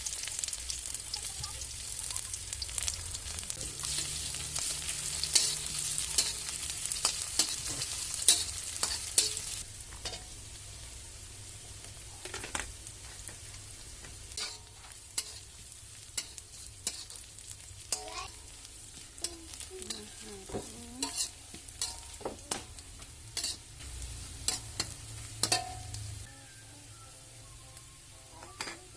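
Food sizzling in hot oil in a frying pan while a spatula stirs it, with frequent sharp clicks and scrapes of the spatula on the pan. The sizzling is loud for about the first ten seconds, then quieter.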